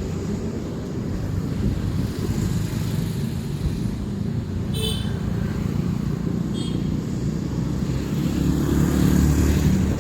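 Road traffic noise: a steady low rumble of vehicles that swells louder near the end, with two brief high beeps about five and six and a half seconds in.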